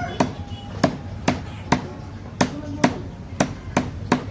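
Chicken being chopped with a blade: steady sharp chops, about two a second, nine in all. The end of a rooster's crow fades out right at the start.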